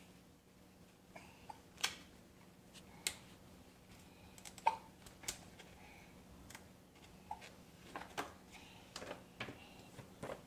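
A young child hiccuping: short, sharp hics at irregular intervals, often a second or so apart.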